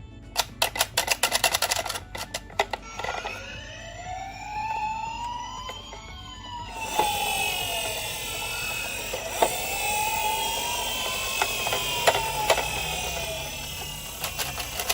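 Toy ambulance's electronic siren wailing, slowly rising and falling twice. A quick burst of rapid clicking comes first, and a hiss and a few sharp clicks join about halfway through.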